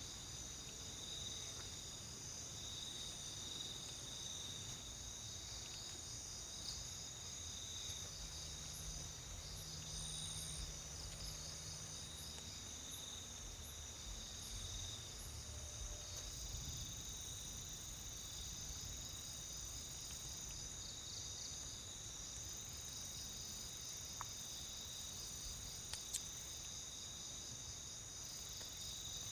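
Dense chorus of crickets and other insects: several steady, pulsing trills at different pitches layered together, with a couple of faint clicks near the end.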